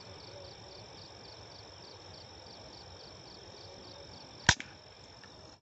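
A single sharp air rifle shot about four and a half seconds in, followed by a fainter click, over crickets chirping in a steady, rapid pulse.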